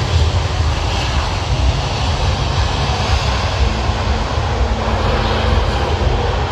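Jet airliner engine noise, loud and steady: a heavy low rumble under a broad hiss.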